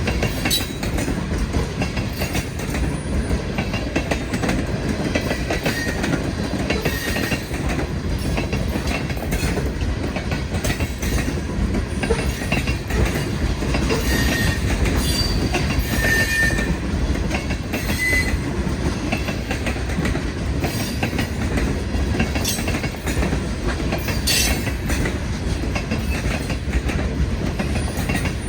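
New York Susquehanna & Western freight train rolling past with a steady rumble, its steel wheels clicking over the rail joints. Brief high wheel squeals come a few times in the middle.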